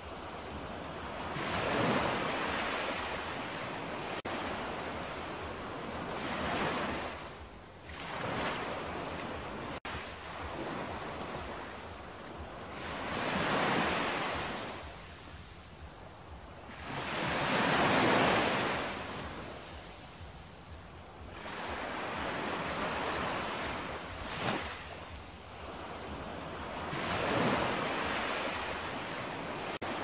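Ocean waves breaking and washing onto a shore, each surge swelling and fading every four to six seconds, the loudest about eighteen seconds in.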